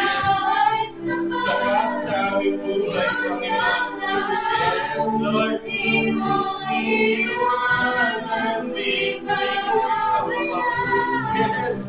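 Live worship band: several women and a man singing together over electric guitars, acoustic guitar and bass guitar.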